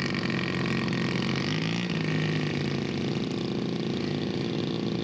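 Small model aircraft engine running with a steady buzz, its pitch wavering slightly.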